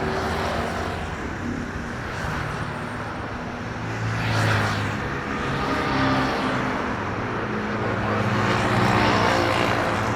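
Jet airliner engines running with a steady rumble and hiss, swelling louder twice.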